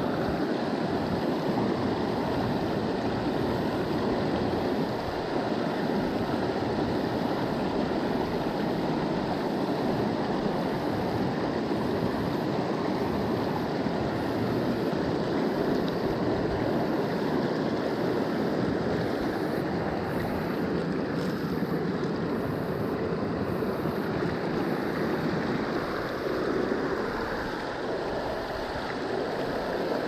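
Creek water running steadily: a continuous rushing with no breaks.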